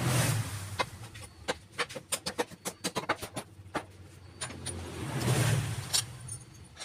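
Light clicks and knocks of a motorcycle's clutch cover being set back onto the engine case by hand. A passing vehicle's engine swells up and fades twice, at the start and again about five seconds in.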